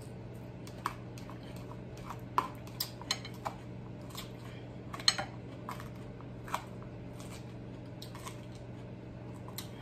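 Metal fork clinking and scraping against a small bowl of salad: a dozen or so scattered light clicks, irregularly spaced, over a steady low hum.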